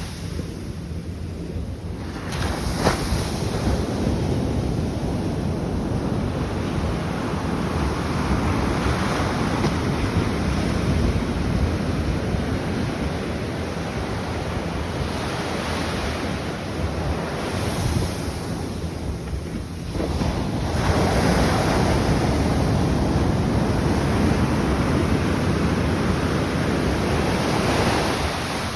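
Atlantic Ocean waves breaking and washing in surges that swell and fade, the biggest one from about two-thirds of the way through, with wind buffeting the microphone.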